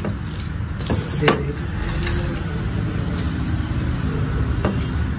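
Eating sounds: hands mixing rice and curry on metal plates and chewing, with a few sharp clicks, over a steady low rumble.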